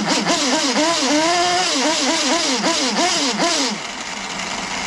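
Nitro RC buggy's glow engine running on the stand. Its pitch rises and falls about twice a second for the first three and a half seconds, then settles to a steady idle.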